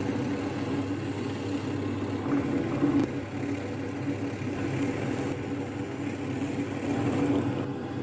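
Drill press motor running with a steady hum while its bit bores a hole into birch plywood.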